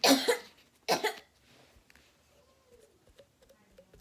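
A person coughing twice, two short harsh coughs about a second apart, followed by faint light clicks.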